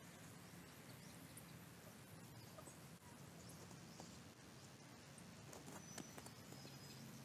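Near silence, with faint scattered ticks and rustles of chukar partridges picking through straw bedding, and a few faint high chirps about five and a half seconds in.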